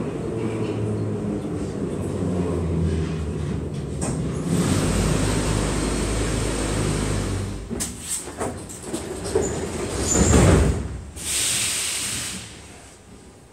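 Metrovagonmash 81-717 metro car running and braking to a stop in the station, with a low hum and wheel noise, then a loud rush until it halts. About ten seconds in, the pneumatic sliding doors open with a loud clunk, followed by a short hiss of air.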